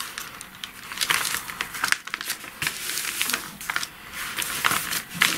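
Paper envelopes rustling and crinkling in irregular handfuls as hands turn over and press flat a journal made of taped-together envelopes.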